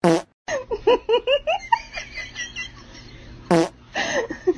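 A quick, bouncing run of laughter about half a second in. It is set between two short, loud sounds whose pitch falls, one at the very start and one about three and a half seconds in.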